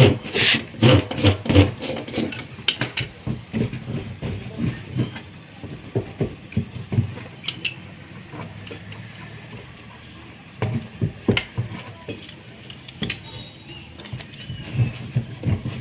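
Irregular knocks, clicks and clinks of plastic pipe fittings being handled and fitted together, with a quieter stretch in the middle.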